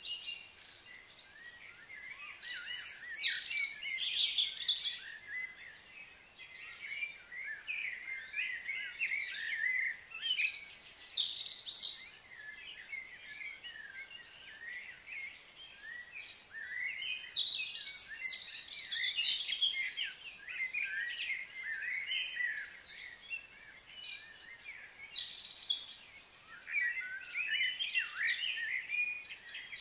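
Small birds chirping and twittering in overlapping bouts, high-pitched, with short lulls between the bouts.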